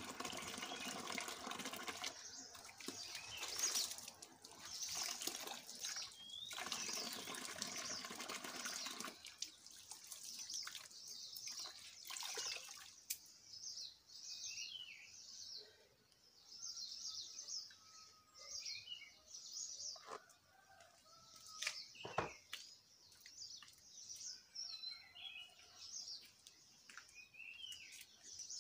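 Water from an outdoor tap running into a plastic basin, stopping about nine seconds in. Afterwards birds chirp on and off, with a few sharp knocks, the loudest near the end.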